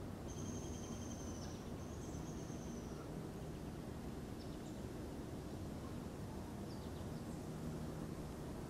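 Outdoor field ambience: a steady low rumble with a bird giving two long, high whistled notes in the first three seconds and a few brief chirps after.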